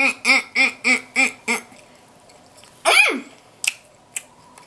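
A woman laughing in a quick run of pitched "ha" pulses, about three a second, for the first second and a half. About three seconds in comes one short vocal sound falling steeply in pitch, then a few sharp clicks.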